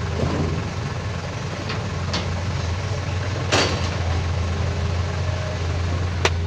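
Heavy diesel engine running steadily with a low drone, with a sharp knock about halfway through and another near the end.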